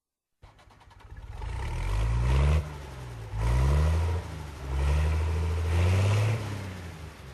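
A vehicle engine starts up loud after a short silence and climbs in pitch, drops sharply and climbs again about four times, as when accelerating through the gears. It settles lower near the end.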